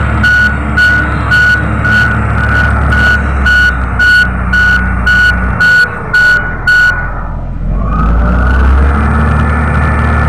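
Komatsu motor grader's diesel engine running, with its back-up alarm beeping about twice a second. The beeping stops about seven seconds in, and the engine then revs up with a rising whine and runs louder.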